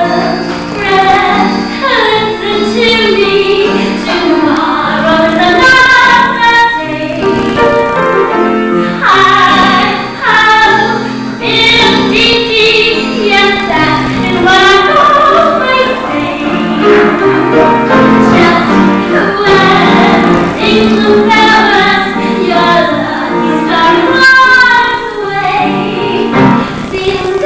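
A woman singing a solo show tune over instrumental accompaniment.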